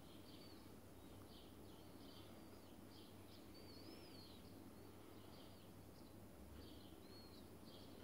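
Sparrows chirping faintly: short chirps, with a few wavering whistled notes among them, coming irregularly several times a second over a low, steady background hum.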